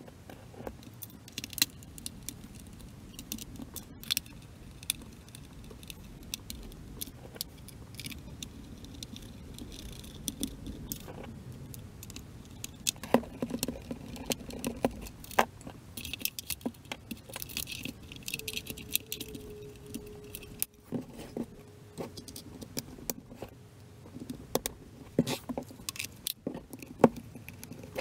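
Plastic case parts and small screws of a Jumper T12 Plus radio transmitter handled during reassembly: scattered sharp clicks, taps and small rattles. A faint steady tone sits under them in the last third.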